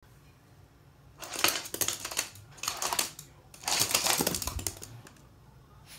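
Three bursts of rapid clicking and scratching: a toy poodle's claws on a wooden floor and a plush toy as it paws at the toy.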